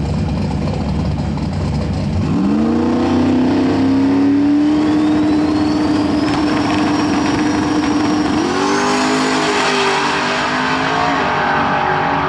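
Rear-wheel-drive drag race car launching about two seconds in and pulling down the strip. A low rumble turns into a loud, steady engine note with a high whine climbing over several seconds, and the engine note jumps around eight seconds in.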